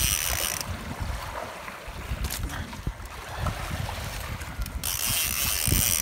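A fishing reel ratcheting under the load of a hooked yellowfin tuna, in two buzzing runs of about a second each, one at the start and one near the end, over a low wind rumble on the microphone.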